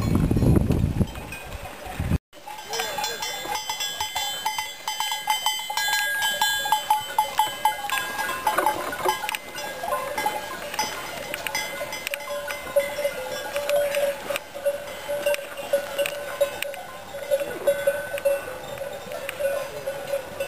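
Bells worn by a grazing flock of sheep clanking irregularly and continuously as the animals move. A low rumble at the start cuts off abruptly about two seconds in.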